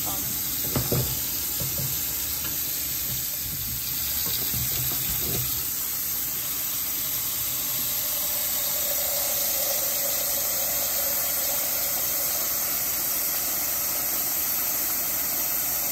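Tap water running steadily into a pot of chitterlings, filling it with fresh water; a steady hollow tone comes into the rush of water about halfway through as the pot fills. A few low knocks in the first few seconds.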